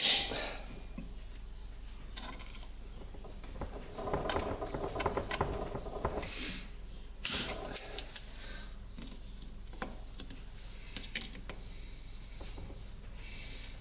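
Vise-grip locking pliers working a rusty bolt out of a Honda XR100 engine case: sharp metal clacks at the start and end, a stretch of rattly scraping about four seconds in, and scattered clicks.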